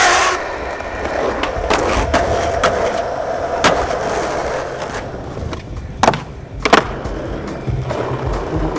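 Skateboard wheels rolling over wooden deck boards, with sharp clacks from the board: one about four seconds in, then two close together about six seconds in, the second the loudest.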